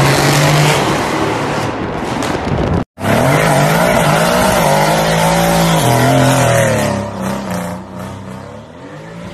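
Mercedes-AMG C63 V8 at full throttle driving past in a tunnel, cut off abruptly about three seconds in. Then a C63 coupe's V8 revs up and down through a burnout with tyre squeal, fading near the end.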